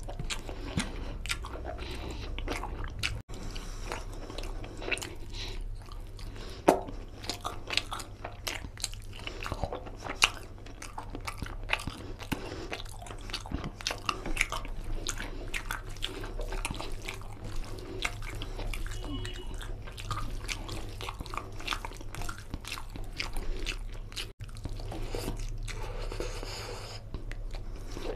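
Close-miked eating of rice and mutton curry by hand: steady chewing and wet mouth smacking with many small sharp clicks, and fingers squishing through curry-soaked rice, over a steady low hum.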